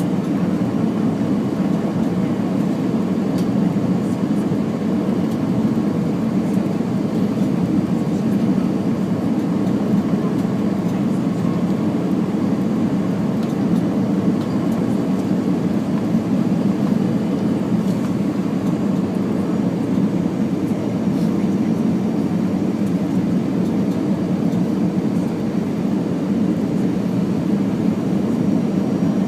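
Steady, even rumble of an Airbus A319's engines and airflow heard inside the passenger cabin.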